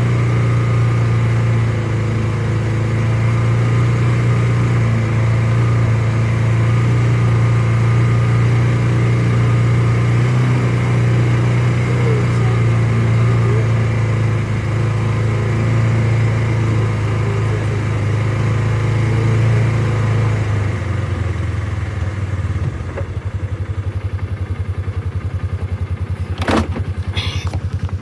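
Vehicle engine running at a steady speed while driving slowly along a dirt road. About three-quarters of the way through it drops to a quieter, evenly pulsing idle, and there is a single sharp click near the end.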